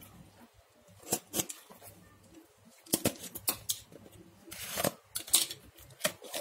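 Taped cardboard shipping box being handled and cut open: a string of sharp snips and scrapes, with a longer rasping stretch about four and a half seconds in.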